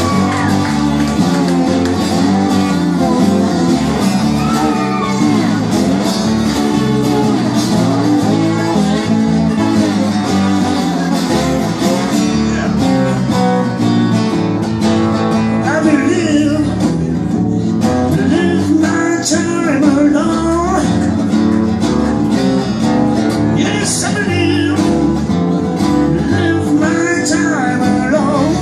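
Live blues improvisation on acoustic guitar played with a bottleneck slide, accompanied by electric bass.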